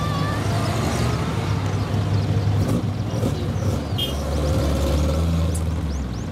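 Lowered old cars driving slowly past one after another, their exhausts running with a low rumble; the rumble gets deepest and loudest from about four seconds in as a station wagon passes close by.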